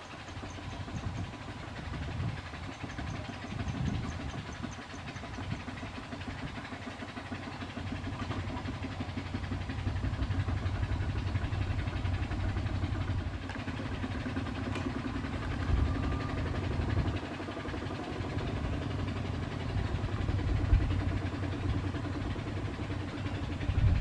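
Kubota RT140 single-cylinder diesel on a walk-behind two-wheel tractor, running steadily with a fast, even chug, getting louder about ten seconds in.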